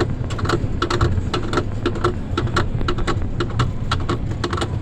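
Roller coaster train climbing the lift hill: a rapid, regular clacking, about four clicks a second, of the anti-rollback ratchet over a low rumble of the lift.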